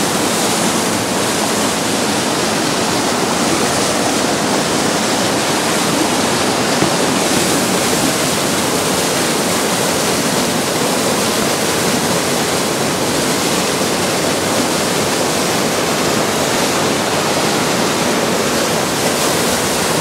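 Waterfall rushing steadily, a narrow fall of water plunging into a rock-walled pool, heard as an even, unbroken rushing hiss.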